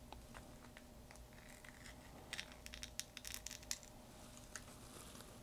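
Faint scraping and clicking of a plastic guitar pick slid along the seam of a Samsung Galaxy S25's back glass, cutting through the heat-softened adhesive. A cluster of sharper clicks and scrapes comes about two and a half seconds in and lasts about a second and a half.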